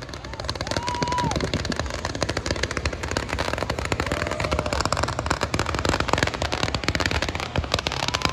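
Consumer fireworks going off in rapid succession: a dense, unbroken string of crackling pops and bangs. Three short whistling tones sound over it, about a second in, about four seconds in, and near the end.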